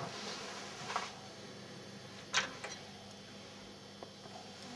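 Small fly-tying scissors snipping at a tube fly: a few faint, short clicks, the clearest about two and a half seconds in, over quiet room tone.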